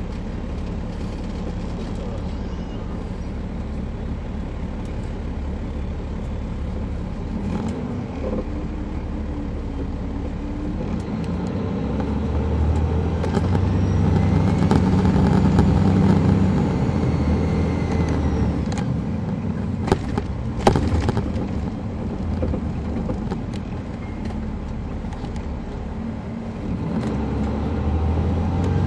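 Caterpillar C13 ACERT diesel of an MCI D4500CL coach, heard from inside the bus. The engine runs steadily, then builds up about twelve seconds in with a high whine that rises and falls before easing off. Two sharp clicks come about twenty seconds in, and the engine builds again near the end.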